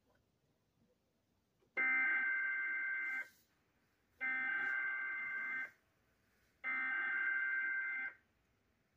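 Three bursts of an Emergency Alert System SAME digital header from NOAA Weather Radio: harsh warbling data tones, each about a second and a half long with about a second of quiet between them. This header opens a severe thunderstorm warning.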